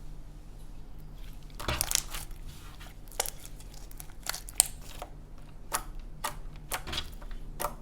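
Hands squishing, stretching and folding freshly made slime, with irregular small clicks and pops. It is quiet at first, and the pops come thicker from about two seconds in.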